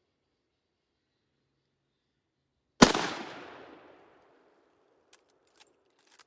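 A single shot from a Winchester Model 94 lever-action rifle in .30-30, a sharp crack about three seconds in that rolls away over about a second. A few light clicks follow near the end, the lever being worked to chamber the next round.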